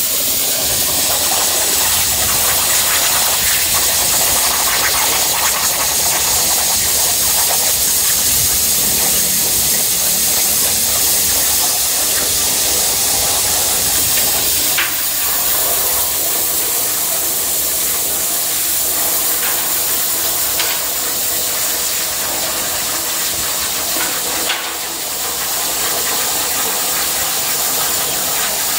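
A CNC plasma cutter's torch cutting through steel plate: a loud, steady hiss, with a short dip in level about three-quarters of the way through.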